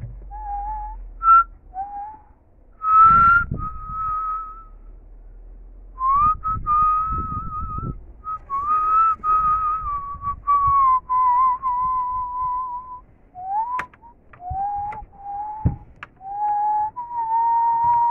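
A person whistling a tune, a single pure note sliding up and down in short phrases with brief pauses between them. A couple of sharp clicks come near the end.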